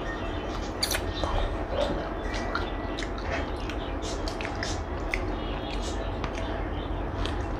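A person chewing and eating food close to the microphone, with irregular short mouth clicks and smacks over a steady low hum.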